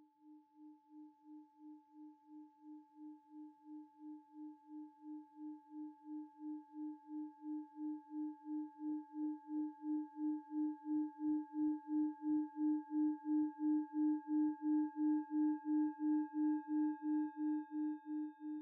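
Singing bowl ringing with a low, steady tone that wavers in a pulse about three times a second, with fainter higher overtones above it, growing gradually louder.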